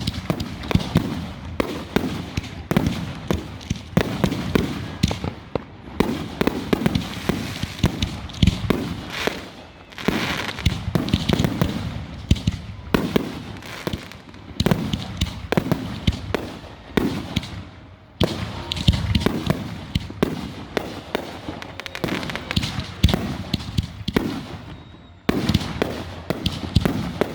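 Aerial fireworks going off in rapid succession: sharp bangs and crackles overlapping almost without pause, with deep booms swelling every second or two.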